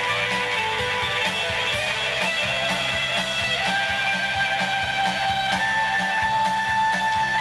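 Live rock band playing amplified electric guitars, bass and drums: held, changing guitar notes over a steady drum beat.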